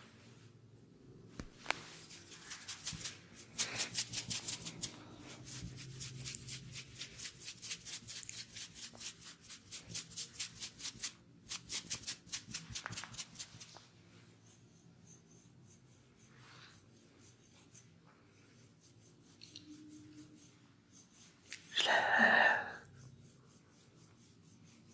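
Hands working briskly through long hair in a head massage: a quick run of rhythmic swishing strokes, several a second, that stops about 14 s in, then a few faint scratches. Near the end, one short louder sound.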